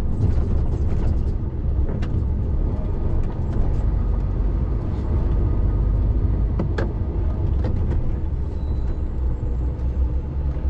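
Articulated lorry's diesel engine and tyres running at low speed, a steady low rumble, with a few light knocks or rattles scattered through it.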